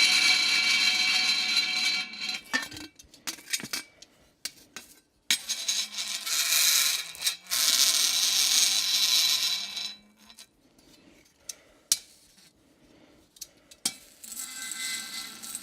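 Metal tongs on dry ice, the metal vibrating against the ice: a loud, high squeal of several steady tones for the first two seconds, then on-and-off screeches and sharp metallic clicks as the tongs are shifted around, and another short tonal squeal near the end.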